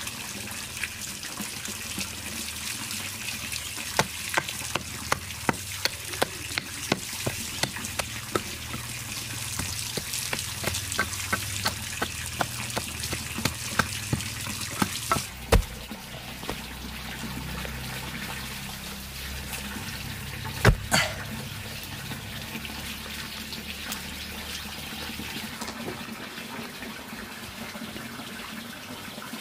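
Pork fat sizzling as it renders down into cooking oil: a steady hiss with a run of sharp clicks, about two a second, for roughly ten seconds. Two louder knocks come in the middle, about five seconds apart.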